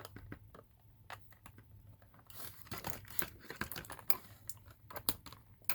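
Doll packaging being handled and cut apart: plastic crinkling and tearing with many quick clicks and snips. The sound gets busier about two seconds in as the doll is worked free.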